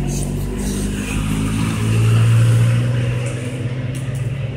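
A motor vehicle's engine running nearby, its low hum swelling to its loudest about two seconds in and then easing off, over a steady hiss of rain on the wet street.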